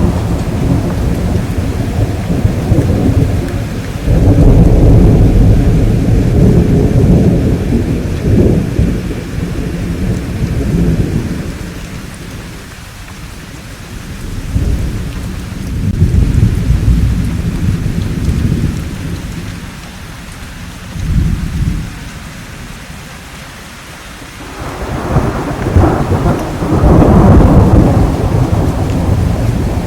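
Thunder rolling in long, deep rumbles over steady rain: a loud peal about four seconds in, quieter lulls in the middle with smaller rumbles, and another loud peal near the end.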